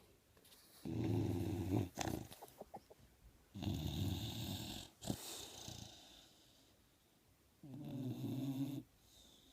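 A dog snoring: three loud, buzzing snores about three and a half seconds apart, with softer breath noise and a few small clicks between them.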